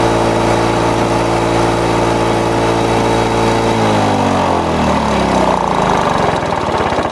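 Lawn-Boy two-stroke mower engine running on a freshly adjusted air vane governor. Its steady note changes about four seconds in and turns rougher as the speed control is moved up toward high speed.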